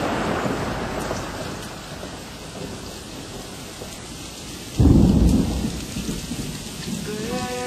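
Steady rain with thunder: a rumble fading away at first, then a sudden loud thunderclap about five seconds in that rolls off. Music starts just before the end.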